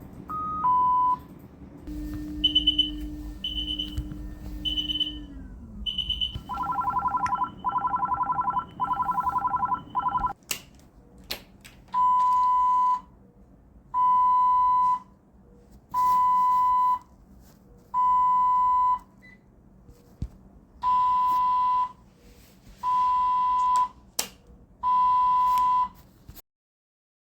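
A series of ICU medical equipment alarms. A short falling two-note tone comes first, then a set of high beeps, then a fast pulsing, warbling tone, and finally a one-second beep repeating every two seconds.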